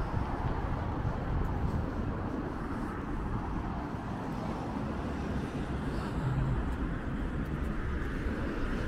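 City street ambience: a steady hum of road traffic.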